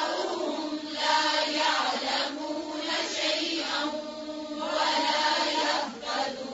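Quranic Arabic chanted in tajweed style, with long drawn-out vowels held on steady pitches, in several phrases separated by short pauses.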